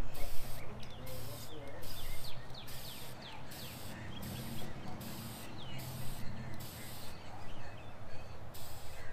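Aerosol spray can of primer hissing in short bursts of about half a second each, roughly one a second, with sharp starts and stops. Birds chirp in the background.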